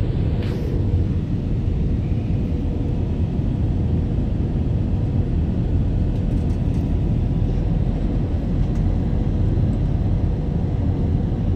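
Steady airliner cabin noise on the approach to landing: jet engines and rushing air heard from a window seat, heaviest in the low end, with a faint steady hum.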